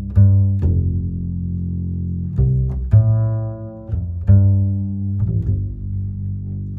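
Background music carried by low bass notes, each starting sharply and fading before the next.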